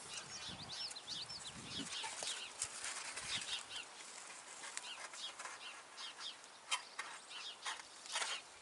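Birds chirping: many short high chirps and a few quick falling whistles, scattered throughout.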